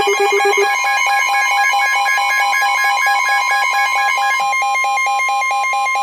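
Emergency Alert System alert tones sounding for a tornado warning: a rapidly pulsing electronic alarm that changes pattern less than a second in, when a steady high single tone starts beneath it and holds.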